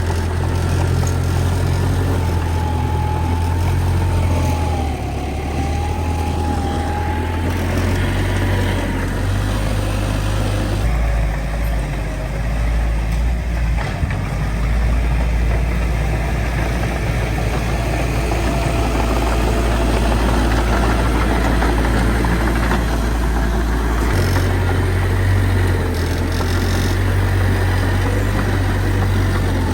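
Heavy diesel engines of earthmoving machinery running steadily, the engine note shifting several times as the machines work. A faint wavering whine rides over it early on.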